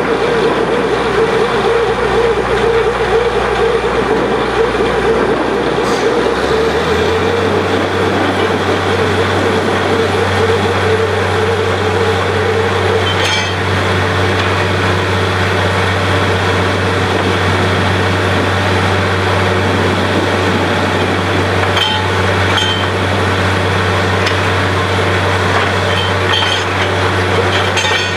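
Borewell drilling rig's machinery running with a steady heavy drone; its deep hum steps up in pitch about a quarter of the way in. A few brief knocks sound near the middle and toward the end.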